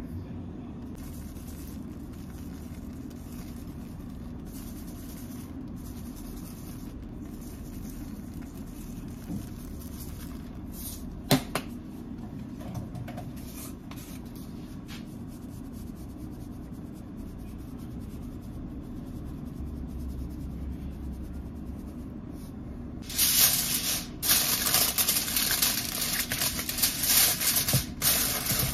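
Sheet of Reynolds Wrap aluminium foil crinkling and rustling as it is spread and pressed over a baking dish, loud and crackly from a little past twenty seconds in. Before that, only a steady low hum with a single sharp tap near the middle.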